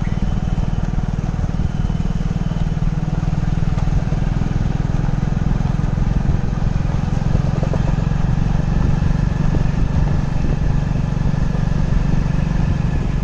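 Motorcycle engine running steadily at low speed, a low, even throb that does not change.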